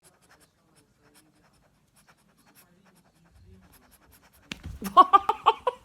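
Faint scratching and light ticks, then, about four and a half seconds in, a loud pitched voice in short pulsing runs.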